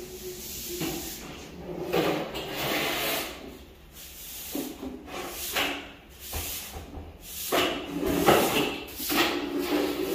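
Straw broom sweeping a tiled floor in short, irregular strokes, the bristles swishing and scraping, with a long-handled lobby dustpan scraping and knocking on the tiles.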